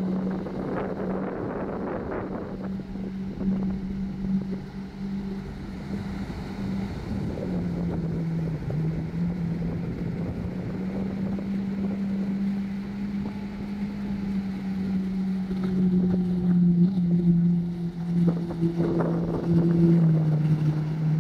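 Jet ski engine running out on the water, a steady drone whose pitch rises and falls as it speeds up and eases off.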